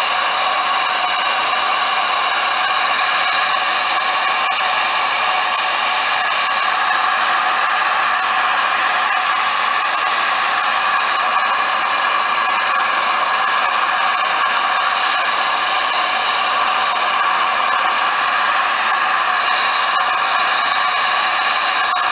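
Electric heat gun running steadily on its low setting, blowing hot air over the tops of freshly poured lip balm tubes to remelt them so the divots fill in.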